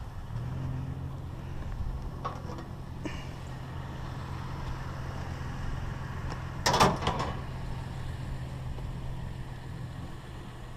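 Pickup truck engine idling with a steady low hum; about two-thirds of the way through, a short loud clatter as a microwave's tray is tossed into the truck bed.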